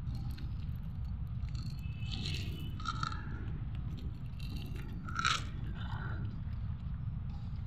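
Cats crunching and chewing dry kibble off a paved floor, with small clicks of the pellets, over a steady low rumble. A few brief higher-pitched sounds stand out about two, three and five seconds in, the last the loudest.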